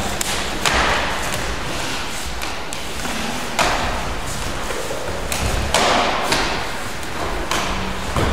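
A karate partner drill: several irregular thumps of bare feet landing and stamping on a wooden gym floor and of middle kicks meeting lower blocks. Each thump echoes in the hall.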